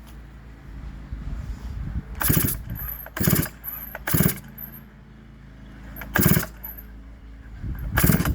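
Two-stroke Farmertec MS660 clone chainsaw being pull-started with the choke on and the decompression valve open: five hard pulls on the recoil starter, each a short rasp of the cord as the engine turns over, about a second apart with a longer gap before the fourth. The engine does not fire.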